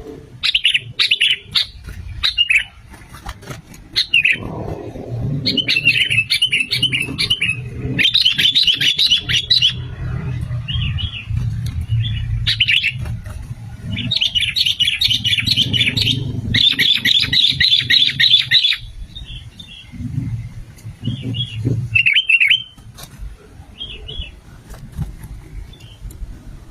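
Sooty-headed bulbul (kutilang) calling in repeated bursts of rapid, chattering notes, each burst a second or more long with short pauses between, over a low steady rumble.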